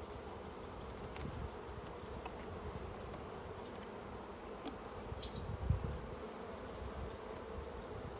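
Honey bees buzzing steadily around an open hive, with a few faint clicks and a single low thump a little over halfway through.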